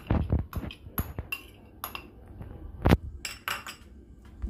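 Metal spoon knocking and scraping grated cheese out of a bowl onto a stainless steel plate: a string of sharp clinks and knocks, the loudest about three seconds in.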